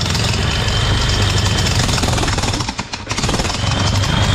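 Hitachi electric jackhammer running and hammering with a rapid, steady knocking over a faint motor whine, dipping briefly about three seconds in. The strong knocking shows the rebuilt hammer now strikes properly, after its piston had stuck in the barrel and left it too weak to knock.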